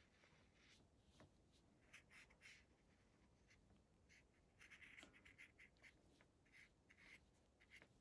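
Near silence, with faint, irregular short swishes of a watercolour paintbrush stroking across paper.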